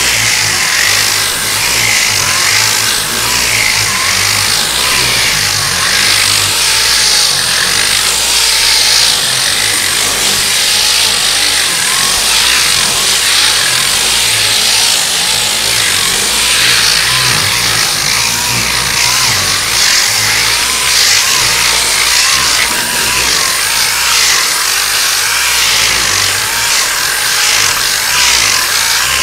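Body filler being sanded on a car door, a continuous loud scraping.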